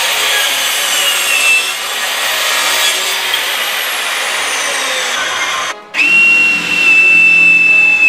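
Electric sliding mitre saw running and cutting through a wooden board, with a faint high whine that falls in pitch as the cut goes on. About six seconds in, a cordless drill takes over, running with a steady high whine as it drills into wood.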